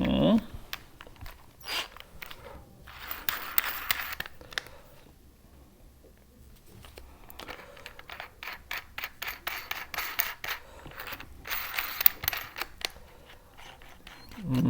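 Small metal parts clinking and scraping as a drill chuck is handled and fitted onto a cordless screwdriver's spindle: a scrape a few seconds in, then a quiet spell, then a long run of quick clicks.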